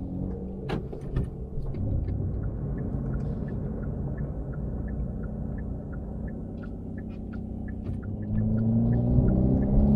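Hyundai Veloster N's turbocharged 2.0-litre four-cylinder and exhaust heard from inside the cabin, a low steady rumble as the car rolls slowly, with a faint regular ticking in the middle. Near the end the engine note rises and gets louder as the drive mode is switched to Custom, with the exhaust set to Sport+.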